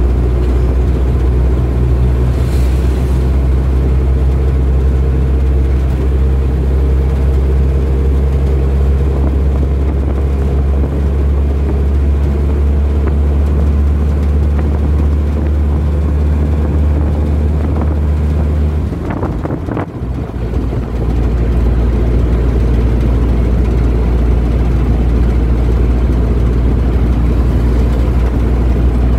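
A vehicle engine running steadily while on the move. About nineteen seconds in the engine note breaks off and the sound dips for a second or two, then the steady drone picks up again.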